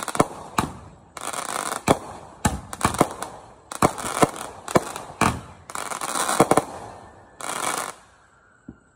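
Aerial fireworks fired from the ground in quick succession. Sharp bangs of launches and bursts come every half second or so, with stretches of hiss and crackle from the bursting stars, and die away near the end.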